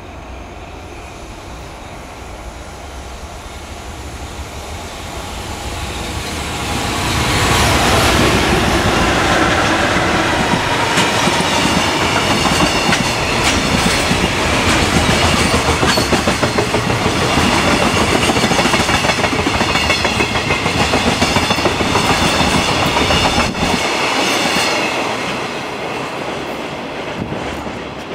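Freight train hauled by a JR Freight EF210 electric locomotive passing close by. It grows louder over the first third as the locomotive approaches, then a long string of container wagons rattles past with a rapid clickety-clack over the rail joints. The sound drops off sharply near the end as the last wagon goes by.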